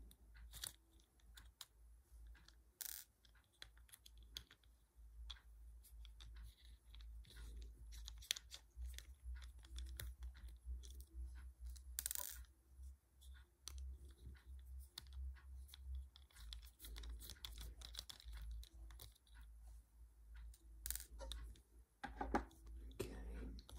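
Faint clicks and scratches of a T5 Torx precision screwdriver turning out the tiny screws of a Garmin Forerunner 35's case, with a few sharper ticks now and then.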